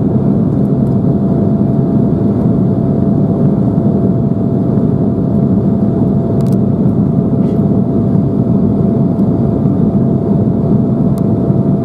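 Steady cabin noise of an Embraer 175 airliner in flight after takeoff: the even roar of airflow and its CF34 turbofan engines, with a steady hum held on one note. A couple of faint clicks come about halfway through.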